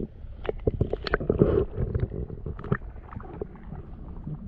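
Muffled underwater rumble picked up by a GoPro in its waterproof housing, with irregular knocks and clicks that come thickest about a second in.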